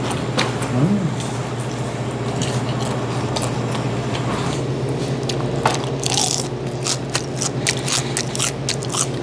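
A man chewing food with his mouth held close to a clip-on wireless microphone: wet, squishy chewing with many sharp crunches, which come thickest in the second half, over a steady low hum.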